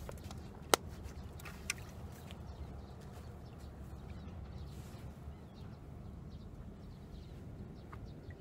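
Steady low outdoor rumble, with one sharp click under a second in and a fainter click about a second later.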